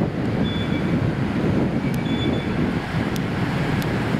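Steady low rumble of a boat's engine on the water, mixed with wind buffeting the microphone.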